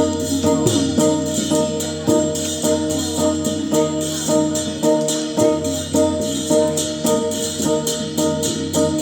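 Northern Thai (Lanna) traditional music for a jerng dance: a held, droning melody line over a regular beat of jingling percussion strokes.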